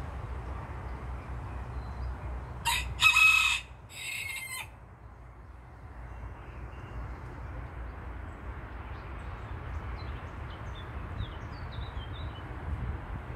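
A rooster crowing once about three seconds in, loud and just under two seconds long, with a short break partway through. Faint small-bird chirps follow later, over a steady low rumble.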